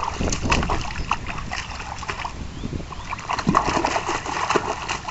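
Feet and a child's wheeled walker splashing and sloshing through an ankle-deep rainwater puddle, in many short, irregular splashes.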